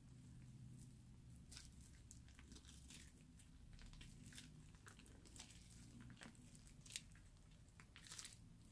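Fluffy slime with foam beads being kneaded and squeezed by hand: faint, irregular sticky crackles and squishes.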